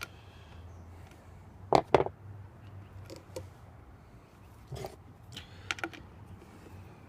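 Scattered clicks and knocks of hand tools against the disposer's parts during its teardown, with two sharp knocks close together about two seconds in.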